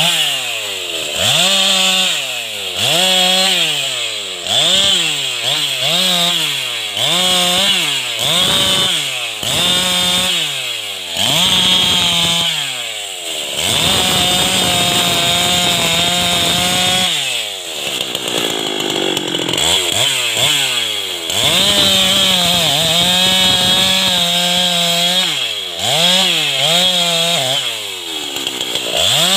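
Husqvarna 390 XP two-stroke chainsaw cutting through a felled teak log. The engine revs up and down about once a second for the first dozen seconds, is held at a steady high speed for a few seconds at a time mid-way, then goes back to short revs near the end.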